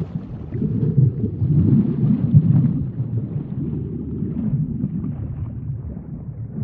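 Deep-water sound effect: a low, churning rumble of water, a little louder in the first half and easing slightly toward the end.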